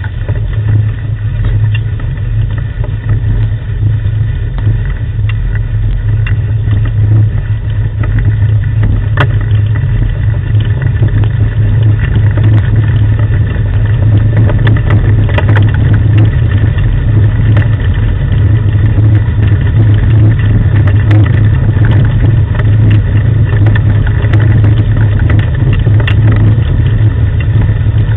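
Steady low rumble of a wheeled rig being pulled along a dirt track by a team of sled dogs, with scattered light clicks and rattles. It gets a little louder a few seconds in.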